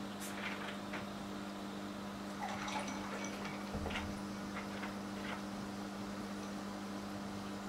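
Aquarium filter running with a steady low hum over a soft water hiss, with a scattering of small clicks and taps and a soft low bump about four seconds in.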